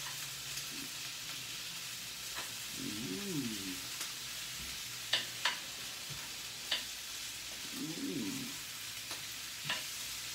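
Close-miked eating of a crunchy hard taco shell: a few sharp crunches and chewing over a steady hiss. Twice, about three seconds in and again near eight seconds, there is a short hummed 'mmm'.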